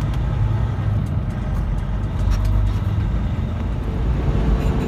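Semi-truck's diesel engine and road noise droning steadily inside the cab while driving.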